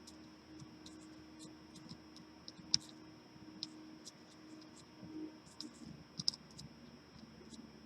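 Faint, scattered small clicks and taps of soldering tools against a phone circuit board, two of them sharper, over a low steady hum.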